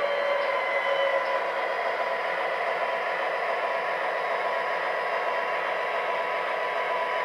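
MTH Premier O-scale Norfolk Southern SD50 model locomotive running on the layout, its Proto-Sound 3.0 speaker playing a steady EMD diesel engine sound.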